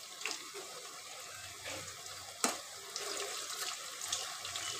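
Gram-flour pakoras deep-frying in hot oil in a wok: a steady sizzle with small crackles, and one sharp tap about two and a half seconds in.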